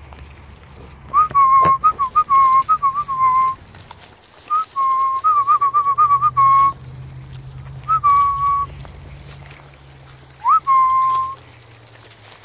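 A person whistling close to the microphone in four short phrases of held notes broken by quick warbles; the last phrase starts with an upward swoop.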